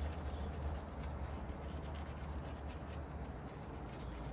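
Small hand brush scrubbing a lathered rubber tyre sidewall: quick, repeated scratchy rubbing strokes over a steady low hum.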